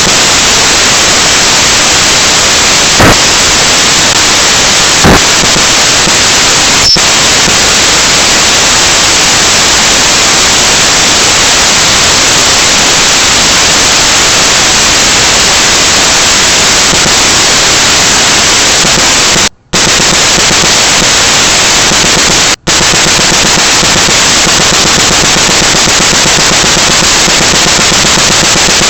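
Loud, steady static-like hiss, even in level throughout, cutting out to silence twice for a moment in the second half.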